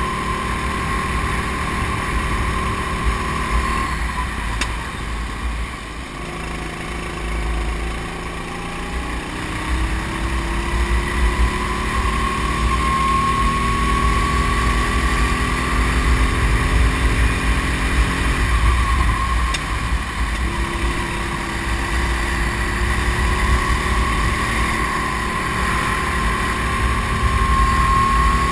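Racing kart engine heard from on board at speed. The revs climb steadily along the straights, drop briefly about four seconds in and again about two-thirds of the way through as the kart slows for bends, then build again.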